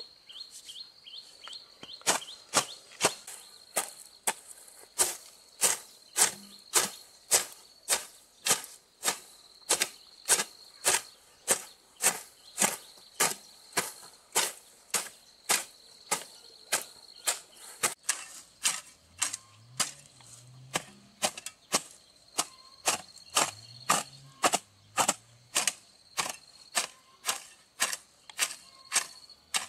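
Sharp strikes of a hand tool repeating steadily about twice a second, starting about two seconds in, over a steady high insect trill.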